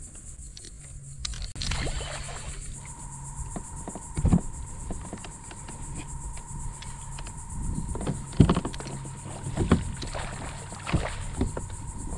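A plastic fishing kayak moving on the water: several hollow knocks and bumps on the hull, the loudest about eight seconds in, over a low rumble and a steady high insect buzz. A steady single tone comes in about three seconds in and holds.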